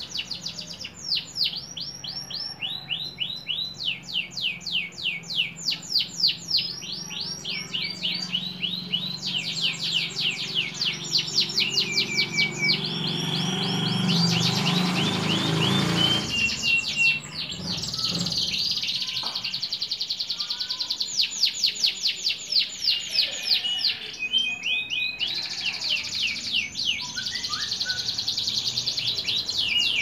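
Domestic canary singing a long song of rapid trills: rolls of quick repeated down-slurred notes that change speed every second or two, with a few short held whistles between them. A low rumble swells in the background towards the middle and cuts off suddenly.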